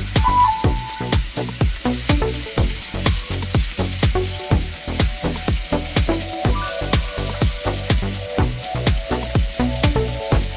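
Background music with a quick, steady drum beat and a melody, over the sizzle of chopped onion and celery frying in oil in a pan.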